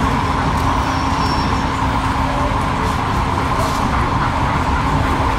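Steady engine-like drone with a constant low hum, typical of a sound-fitted model diesel locomotive running.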